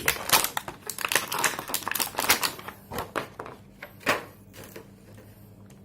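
Irregular clicks and taps of hard plastic as action figure parts are handled, dense in the first couple of seconds, then thinning out and growing quieter.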